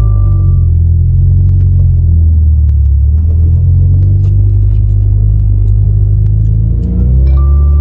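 Turbocharged 2.0-litre flat-four of a 2015 Subaru WRX, with aftermarket headers, J-pipe, cat-back exhaust and a larger charge pipe, heard from inside the cabin while driving: a loud, deep engine rumble whose pitch rises and drops several times with the throttle.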